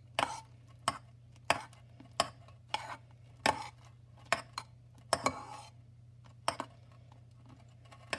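A spoon stirring glue and shaving foam in a mixing bowl, knocking against the bowl's side roughly every half second to a second, with a longer gap near the end.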